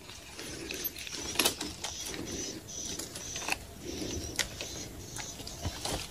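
Light, irregular clicks and rustling of a fishing rod and reel being handled.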